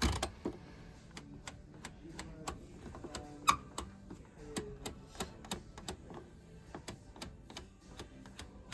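Irregular light clicks and taps, several a second, with one louder click about three and a half seconds in, over faint background music.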